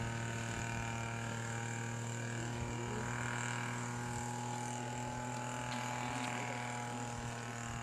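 A steady low hum that holds one even pitch throughout, with fainter higher tones above it.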